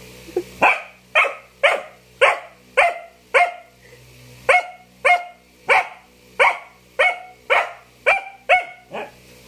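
Dog barking insistently, short sharp barks at a steady pace of about two a second, with one brief pause about halfway. This is begging barking: the dog keeps it up until it is given food.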